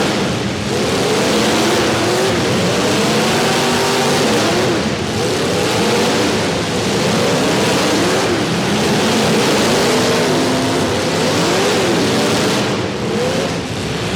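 Several demolition derby cars' engines revving hard at once, their pitches rising and falling over one another in a dense, continuous din.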